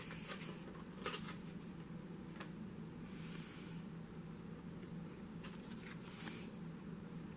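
Faint handling noise in a small room: a few soft swishes and light clicks over a steady low hum.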